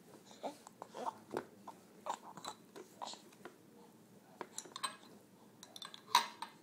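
A baby with no teeth yet gumming banana: short wet lip smacks and mouth clicks at an irregular pace, the loudest smack near the end.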